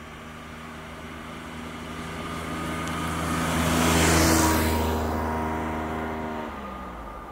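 A vehicle passes by: engine and road noise build up, are loudest about four seconds in, then fade away. The engine note drops near the end.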